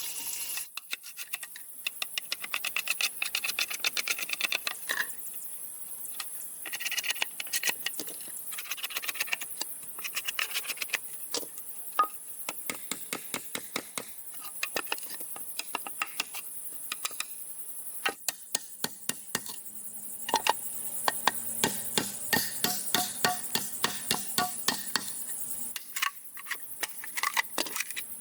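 Hand work on bamboo: many light knocks and taps, often in quick runs of several a second, with pauses between the runs.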